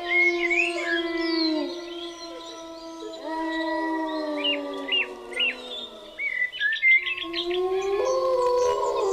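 Wolves howling together: several long, held howls at different pitches that slide down and die away around two seconds in and again around six seconds, with a new howl rising near the end. Short high chirps sound over the howls.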